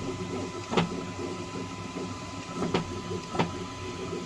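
Creality K1 Max 3D printer running a print, with a sharp thunk three times over its steady running: loudest about a second in, then two close together near the end. The thunk comes each time the Z-axis moves up or down for a Z-hop.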